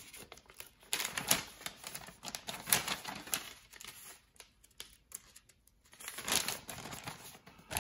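Paper instruction sheet being handled, crinkling and rustling with small clicks in irregular spells, a quieter pause midway.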